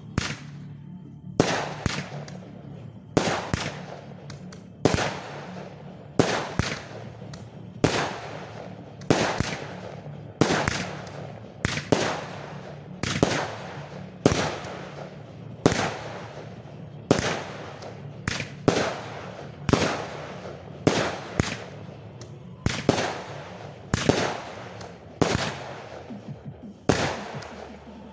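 Fireworks display: aerial shells bursting in a steady series, a sharp bang roughly every second or so, each trailing off in a fading echo.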